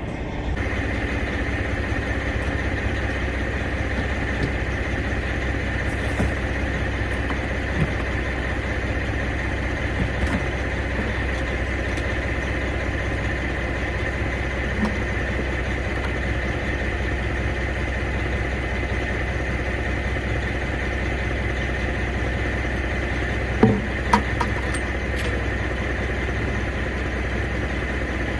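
Oshkosh deice truck's engine idling steadily, with a steady high whine running over the low hum. A couple of brief knocks sound near the end.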